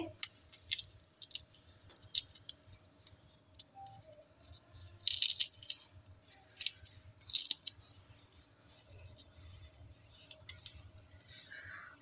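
Freshly microwave-roasted in-shell peanuts being cracked open and shelled by hand: scattered dry crackles and rustles of the brittle shells and papery skins, with a few louder cracks around the middle.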